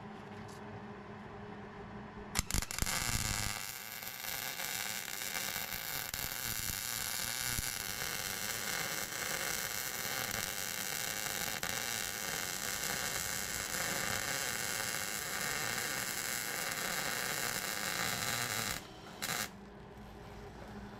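MIG welder arc on steel: a steady, loud hiss that starts about two seconds in with a few sharp pops, runs for about sixteen seconds and cuts off suddenly, followed by one short burst of welding near the end.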